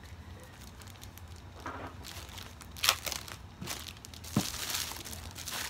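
Packaging crinkling and rustling as it is unwrapped, with a sharp crackle about three seconds in and a denser rustle near the end.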